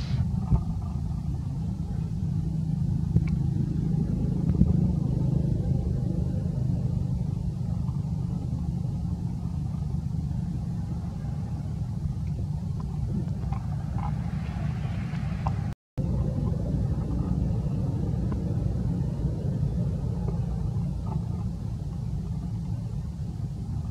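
Steady low rumble with a few faint clicks, broken by a brief gap of silence about two thirds of the way through.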